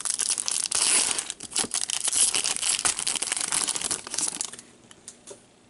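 Foil wrapper of a trading-card pack being torn open and crinkled, a dense crackling rustle full of small clicks that dies away about four and a half seconds in.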